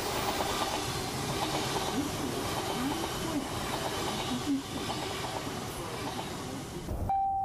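Recorded subway train sound effect played over a theatre's sound system: a train running with a steady rumble, rattle and clatter. Near the end the train noise drops away and a single steady chime tone begins.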